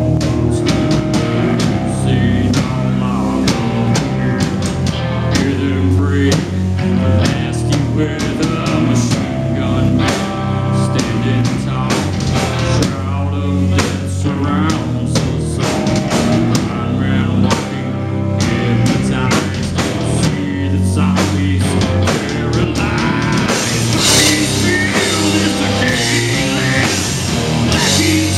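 Heavy metal band playing live: distorted electric guitar, bass guitar and a drum kit pounding out a fast rhythm, with a brighter cymbal wash in the last few seconds.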